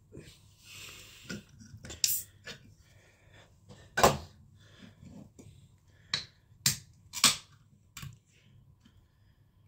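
Handling noise close to the microphone: a brief hiss near the start, then six or so sharp clicks and knocks, the loudest about four seconds in.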